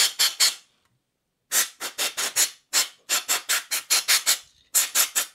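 Can of compressed air (air duster) sprayed in many short hissing blasts, about three or four a second, into the vents of a laser engraver module. There is a pause of about a second near the start.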